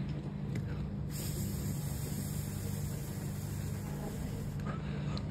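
Steady low hum with a faint hiss: room tone.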